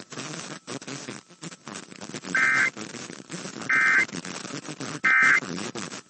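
Emergency Alert System end-of-message data bursts: three short, identical buzzy warbling tone bursts about a second and a half apart, with faint noise between them. They are the digital signal that closes an EAS test.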